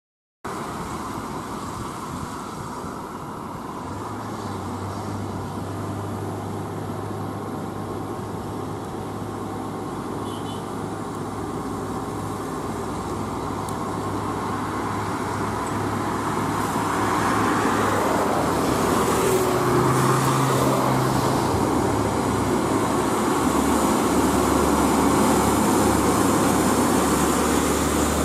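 A heavy truck's diesel engine running as the UD Quester GWE 370 tractor-trailer approaches on a wet road, with tyre noise and passing motorcycles and cars. It grows steadily louder over about the first two-thirds, then holds.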